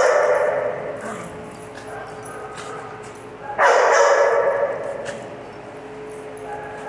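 Small dogs barking and yapping at play, in two loud bursts: one trailing off about a second in, and another starting suddenly about three and a half seconds in and lasting over a second before fading.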